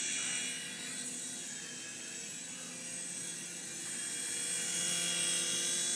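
Mini RC helicopter's small electric motors and rotor running with a steady high whine. It drops in level about a second in and swells back up about four seconds in.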